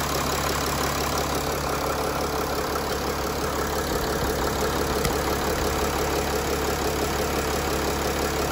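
Mercedes OM642 3.0-litre V6 diesel engine idling steadily under an open bonnet.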